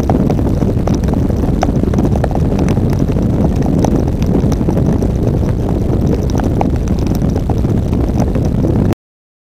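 Wind buffeting a motorcycle-mounted camera's microphone at highway speed in heavy rain: a dense, steady low rumble with scattered faint ticks, cutting off suddenly near the end.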